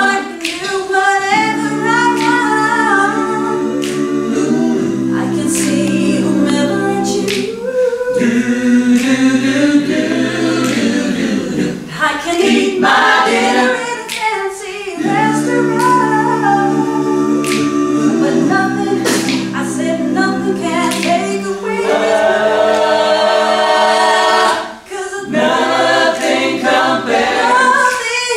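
Mixed-voice a cappella group singing in close harmony, with the backing voices holding sustained chords under a lead line that moves above them.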